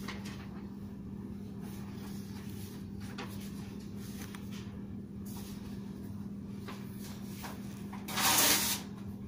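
Faint scratching of a pencil drawing on notebook paper over a steady low hum, with a louder short hissing rustle about eight seconds in.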